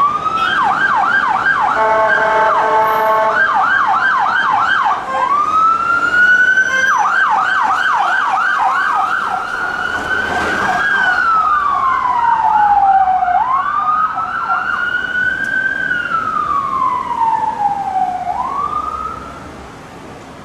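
UK police vans' and car's sirens on an emergency run: a fast yelp, a steady bull horn blast about two seconds in, then a slow rising and falling wail, with a second siren faintly overlapping. The sirens fade away near the end.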